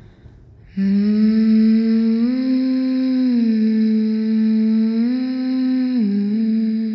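A woman humming a slow melody of long held notes, starting about a second in and moving between a lower and a higher note: up, down, up and back down again.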